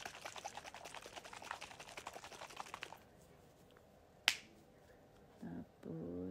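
Small plastic bottle of skincare liquid being shaken hard in the hands: a rapid rattling slosh for about three seconds. A single sharp click follows about four seconds in.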